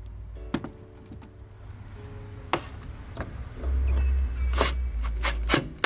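Milwaukee cordless impact driver running in short bursts to run down 10 mm nuts on the liftgate glass, briefly at the start and again for about two seconds past the middle, snugged only lightly because they hold glass. Sharp clicks of the socket and nuts come in between.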